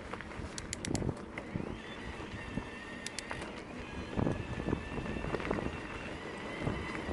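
Electric mountain bike riding over a rocky singletrack: tyres rumbling on stones and gravel, with sharp rattles and knocks from the bike and wind noise on the microphone. A steady high whine comes in about a second and a half in and holds.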